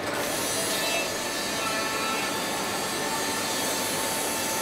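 Desma robotic shoe-making cell at work: a steady mechanical rasp and hum of the robot arm and its machinery, with faint steady whining tones over it.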